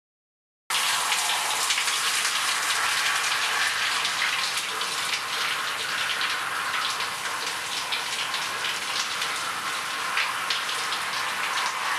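Shower running, water spraying and splashing in a steady hiss that cuts in abruptly just under a second in.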